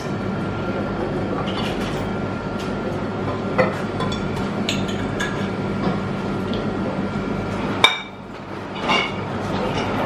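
Steady hum of a vending machine's dispenser, with a few light clinks from a glass bottle. About eight seconds in, a sharp click comes and the hum stops.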